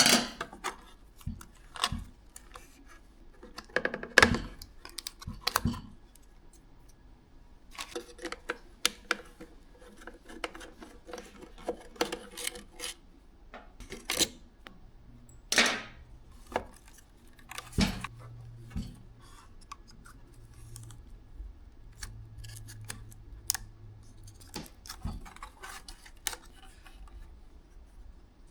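Hand work on a car side mirror: scattered, irregular clicks, taps and light scrapes of tools and plastic parts being handled.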